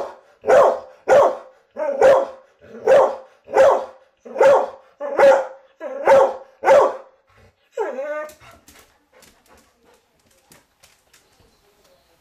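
Pet dog barking repeatedly at a raccoon outside, about ten barks a little under a second apart, then a single whine about eight seconds in.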